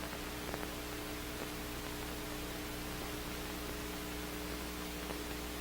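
Steady soundtrack hiss with a low electrical hum and a few faint clicks: the background noise of an old recording.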